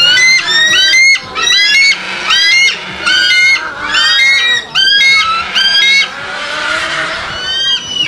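Bald eagle calling: about seven bursts of high, rapid piping notes, each burst under a second long with short pauses between.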